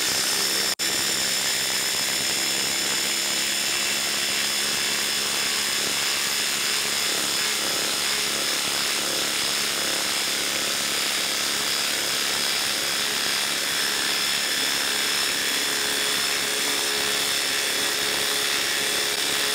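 Ryobi HP quarter-inch impact driver hammering continuously under heavy load as it sinks a 10-inch by half-inch lag screw into a log, stopping for a moment less than a second in.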